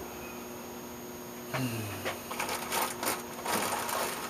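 Small metal parts of a Walbro carburetor being handled and set down on a cloth-covered work table: a sharp click at the start, then from about halfway on a run of light clicks and rustling.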